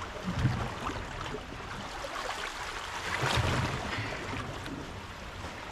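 Shallow seawater washing and lapping at the shore's edge, swelling louder for a moment about three seconds in.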